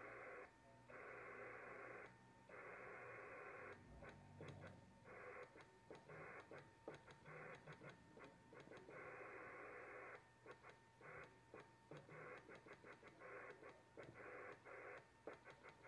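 Faint hiss from an amateur radio transceiver's speaker with a steady tone underneath, cutting in and out irregularly in short and long stretches as the transmitter is keyed on the 10-metre band.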